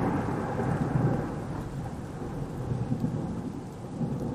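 Thunderstorm sound effect: a low rumble of thunder over steady rain, slowly dying away.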